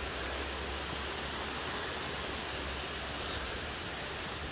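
Steady, even rushing of distant falling water, with a low rumble underneath.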